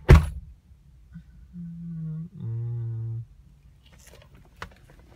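A sharp thump, then a person humming two short steady notes, the second lower than the first, followed by a few faint clicks.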